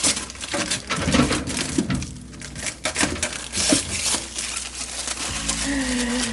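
Packing material being pulled off and crumpled while a new refrigerator is unpacked: irregular rustling and crinkling with sharp clicks and knocks.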